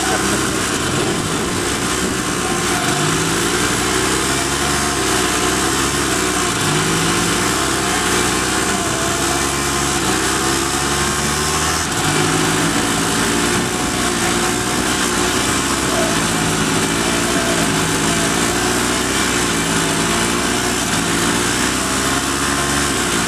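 A 1970s Sears riding mower and a Polaris 250 ATV running hard against each other in a pull, their small engines under load with the pitch wavering up and down.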